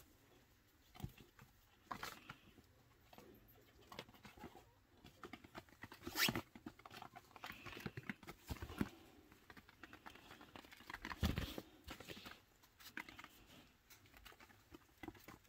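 Baby chinchillas scampering and hopping on a fabric playpen floor: soft, irregular patter of small feet with a few louder thumps, the loudest about six seconds in and again about eleven seconds in.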